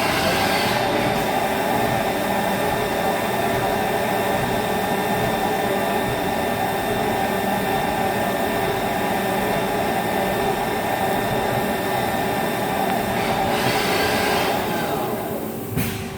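Haas ST-20 CNC lathe spindle running at speed with a steady noisy whine that comes in abruptly, then winds down with a falling pitch near the end. The owner believes the noise, which has been getting louder, comes from spindle bearings going bad.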